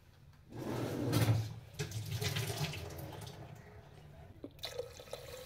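Water running, as from a tap, then poured into an aluminium pressure cooker over dry roasted wheat daliya and spices near the end.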